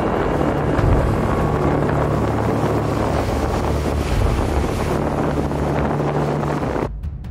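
Wind and rough sea noise with a low steady hum underneath, cutting off suddenly near the end.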